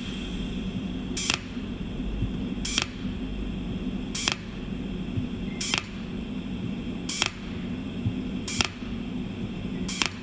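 Cold welding machine firing pulse after pulse at a sheet-metal seam: a short, sharp snap about every second and a half, seven in all, over a steady low hum. Each snap is one weld spot fusing the two sheets together without filler wire.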